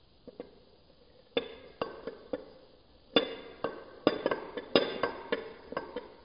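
Teaspoon clinking against the inside of a small porcelain espresso cup as the coffee is stirred: irregular ringing clinks, faint at first, then louder and quicker from about three seconds in.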